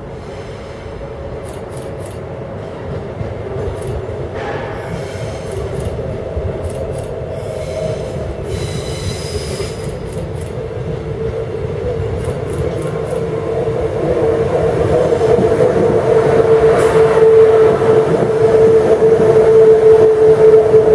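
Queensland Rail electric trains, an older ICE and a newer SMU 260, approaching and running in along the platform. The rumble grows steadily louder, with a steady whine that strengthens as the nearer train comes alongside near the end.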